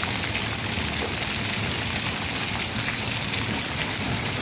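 Hail and rain falling steadily: a dense, even hiss of many small impacts on the ground.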